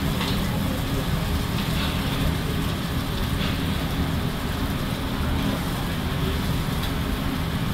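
Beef slices sizzling on a hot flat-top steel griddle, with a metal spatula scraping the plate a few times, over a steady low rumble.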